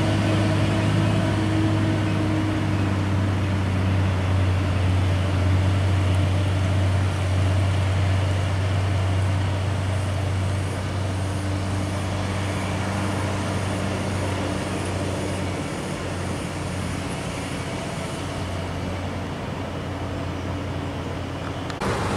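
Steady low rumble and hum of a vehicle running, slowly getting quieter, with a sudden change just before the end.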